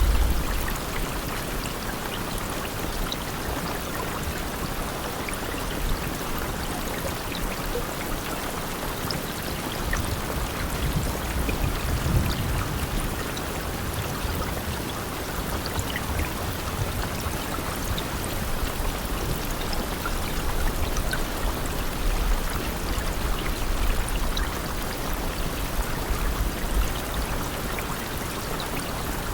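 Steady rain, an even hiss of falling water with scattered individual drops and low rumbling swells now and then, like gusts or water running off.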